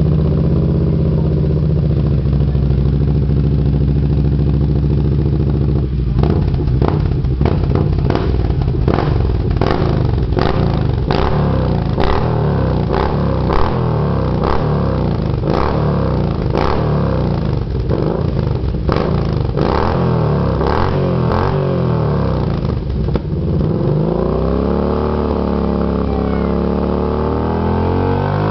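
Engine running through an aftermarket 'Midnight Scorpion' sport exhaust tip: idling steadily, then about six seconds in a long run of quick throttle blips, roughly one a second, and near the end held at a raised rev whose pitch wavers up and down.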